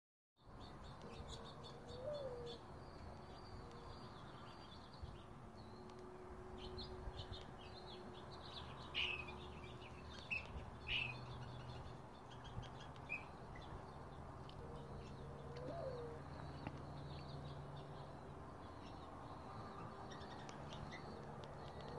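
Backyard birds chirping, with a few louder chirps about nine to eleven seconds in, and a short low call near the start and again about sixteen seconds in, over a faint steady low hum.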